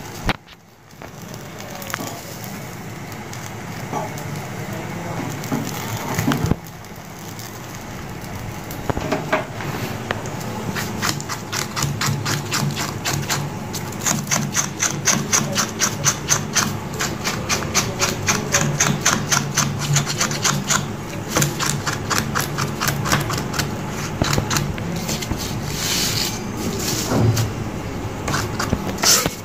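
A knife scraping singed, blackened hair off a goat trotter against paper, in quick repeated strokes, several a second, that keep up through the latter two-thirds. This is the cleaning stage after the hair has been burnt over a gas flame.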